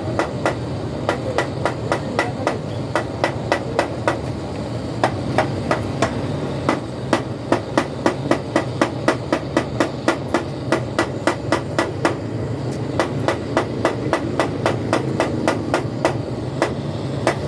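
Hammer tapping on a truck radiator tank in quick, even strokes, about three a second, over a steady low hum.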